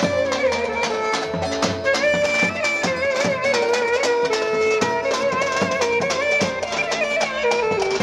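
Romani wedding dance music: a steady davul drum beat under a wavering, quickly ornamented lead melody.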